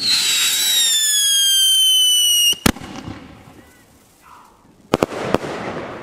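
A firework shot goes up with a loud whistle that falls slightly in pitch for about two and a half seconds, then ends in a sharp bang as it bursts. A couple more bangs follow about five seconds in.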